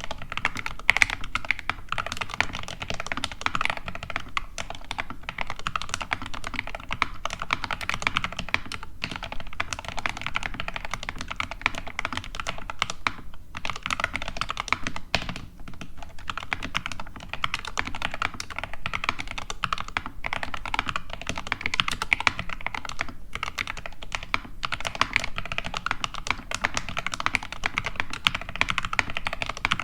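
Steady, fast typing on an SK61 60% mechanical keyboard with lubed Gateron Red linear switches and Everglide stabilizers: a dense run of key clacks, broken by a few brief pauses.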